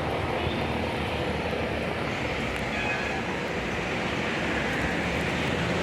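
Tour bus engine running steadily: a low, even rumble with no horn or sudden sounds.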